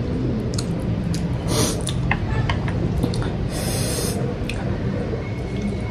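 A person eating ramen noodles, with two short airy slurps, one about a second and a half in and one near four seconds, and a few small mouth clicks between, over a steady low background noise.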